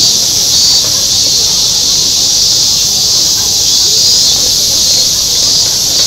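Loud, steady chorus of insects shrilling, a dense high-pitched hiss that never breaks, with a faint murmur of people underneath.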